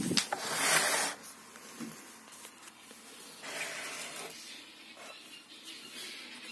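A brief rushing hiss for about the first second, with a click at the start, then faint rustling: handling noise as the camera is moved around the chainsaw.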